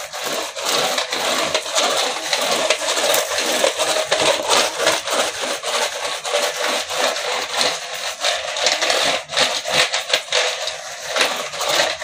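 Green plastic handheld roller brush sweeper rubbed back and forth over a ridged door mat in quick repeated strokes, its brushes sweeping up rice grains.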